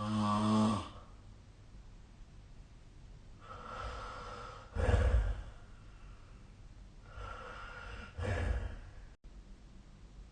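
A sleeping person snoring, three breaths about four seconds apart. The first snore is a short pitched drone; the next two are each a breathy rush that ends in a short, loud, low rumble.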